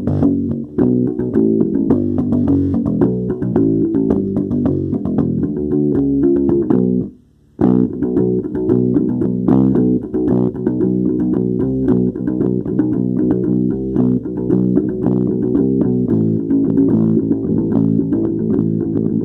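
Instrumental music built on fast plucked bass guitar and guitar notes, with a sudden half-second break about seven seconds in before it carries on.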